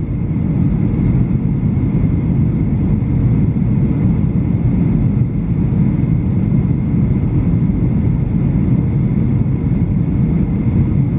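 Steady cabin noise inside a Boeing 737-800 on approach with flaps extended: a low, even rumble of airflow and its CFM56 engines, with a faint high whine.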